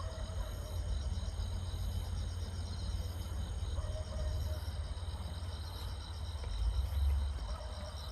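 Crickets chirring steadily in rapid high-pitched pulses, over a continuous low rumble.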